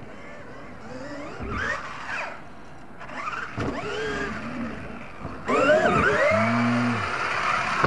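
Radio-controlled monster truck's motor whining in repeated throttle bursts, its pitch rising and falling as it accelerates and lets off, over the hiss of tyres churning dirt. It gets louder about two-thirds of the way through.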